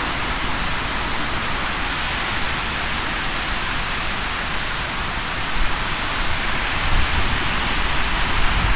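Waterfall rushing: a steady hiss of falling water, with a few low rumbles near the end.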